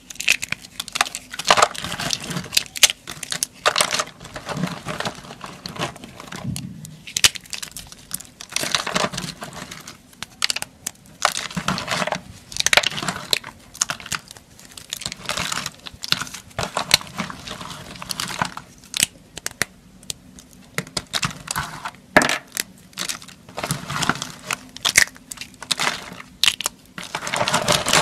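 Curled soap shavings and cut soap pieces crunched and crumbled between the fingertips: a run of sharp crackling crunches in irregular clusters with short pauses between them.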